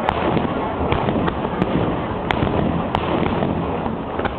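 Aerial fireworks bursting in quick succession: a dense run of bangs and crackling over a steady rumble, with a few sharper cracks standing out.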